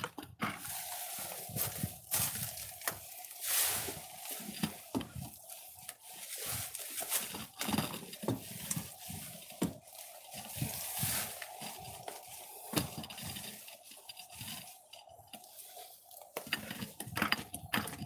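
Long-handled applicator scraping and dabbing thick waterproofing coating onto the shed's panels, with repeated knocks and scrapes as it is worked in and out of a plastic bucket.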